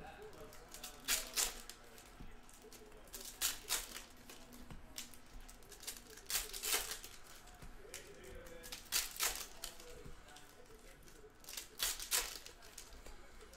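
Trading-card packs being opened: crisp paper-and-foil rips and swishes come in quick pairs every two to three seconds.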